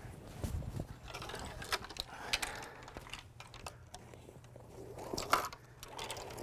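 Folding-canoe frame parts being handled and slid into cloth packing bags: scattered light clicks, knocks and rustling, with sharper knocks about two and a half seconds in and again near the end.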